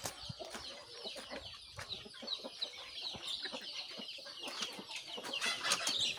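Many domestic chicks peeping at once: a steady chorus of short, high, falling peeps, overlapping, with a few light knocks and rustles, louder near the end.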